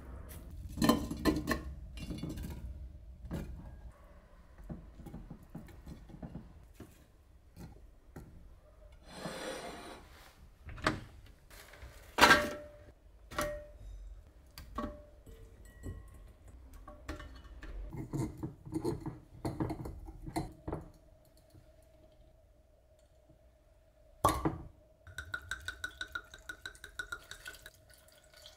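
Kitchen dishes and utensils clinking and knocking, with scattered single thumps of things being handled and set down, and a quick run of light ticks near the end.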